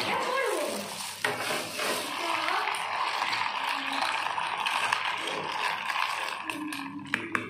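Ice cubes tumbling from a plastic bag into a plastic jug of syrup drink, a steady clattering rattle with the bag rustling, and a few sharp clinks near the end.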